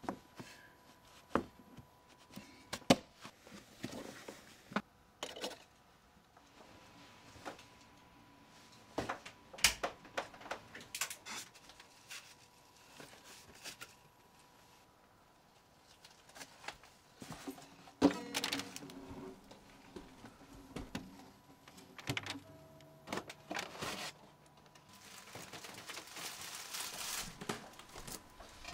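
Scattered knocks, clicks and rustling of a person moving about and handling things in a small room, with a stretch of hissing noise near the end.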